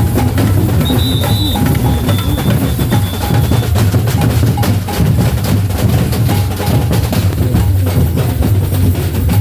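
Batucada samba drum ensemble playing a loud, continuous drumming rhythm, with deep bass drums under dense higher percussion strokes.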